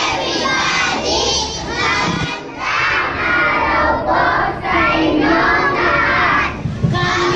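A large group of young children singing together in unison, in phrases of a second or two with short breaks.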